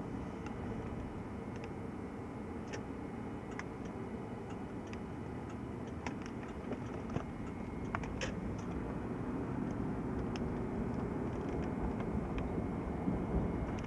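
Steady engine and road rumble heard from inside a moving car, growing a little louder in the second half, with scattered small clicks and rattles.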